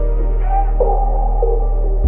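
Background electronic music: a held deep bass note under a short synth figure that repeats about every half second.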